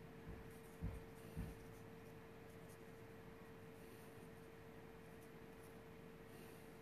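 Near silence, with faint strokes of a Copic alcohol marker on paper. Three soft low thumps come in the first second and a half, over a faint steady hum.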